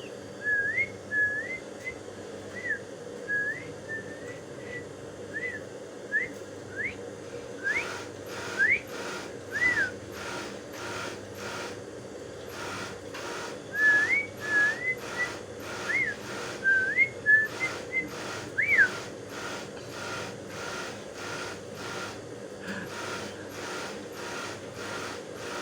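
Pet sooty-headed bulbul (kutilang) giving short whistled notes, each a quick rising or falling glide, in two bouts with a pause of a few seconds between them.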